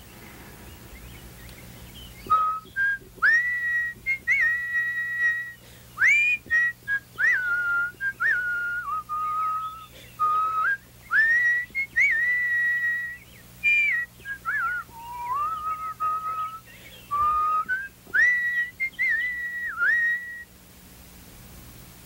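A person whistling a warbling, birdlike tune in imitation of a nightingale's song. It comes in short phrases of held high notes joined by quick slides up and down, starting about two seconds in and stopping shortly before the end.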